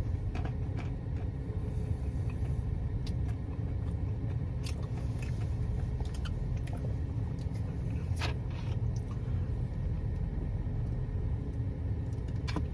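A man chewing a mouthful of turkey, Colby Jack cheese and almonds, with scattered sharp clicks and crunches from the mouth, over a steady low background rumble.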